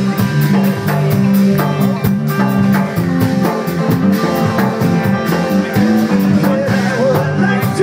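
Live rock band playing: electric guitar and electric bass over a drum kit, with a steady cymbal beat.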